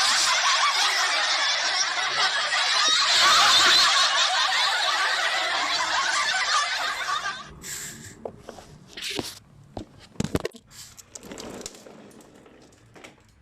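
A laughing-choir sound effect: a big group of voices laughing all together in a loud, dense wall of laughter that cuts off abruptly about seven and a half seconds in. After that, only a few faint scattered sounds and clicks are left.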